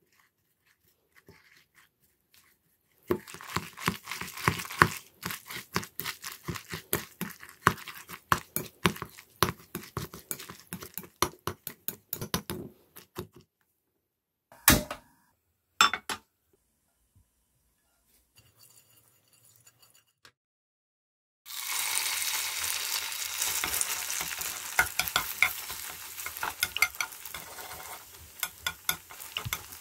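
Chopsticks stirring shredded carrot, egg and starch in a glass mixing bowl: a rapid run of light clicks and taps against the glass. Later, carrot nests frying in oil in a nonstick pan give a steady sizzle, with chopsticks tapping the pan.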